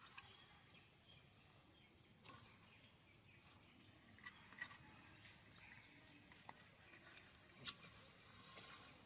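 A cricket trilling steadily in a high, slightly pulsing tone, with a few faint clicks and rustles of banana leaf and thread being handled as a fish parcel is tied.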